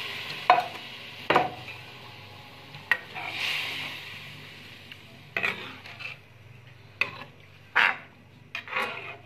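A metal spoon stirring watery moong dal in an aluminium pot, knocking and scraping against the pot in irregular clinks. A soft sizzle from the hot water just added fades over the first second or two.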